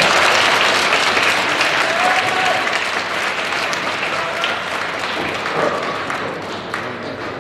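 Spectators applauding a bowler's throw, the clapping slowly dying away with a few voices mixed in.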